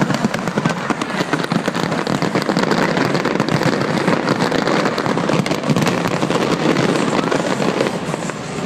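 Fireworks display: a dense, continuous barrage of bangs and crackling with no pauses.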